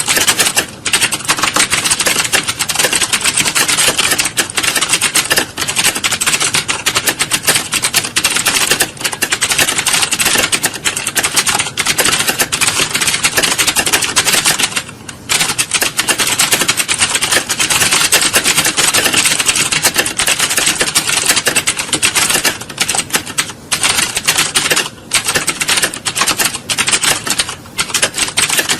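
Many computer keyboards being typed on fast at once, a dense, unbroken clatter of keystrokes, as in a hall of candidates taking a typing test. The clatter thins briefly about halfway through.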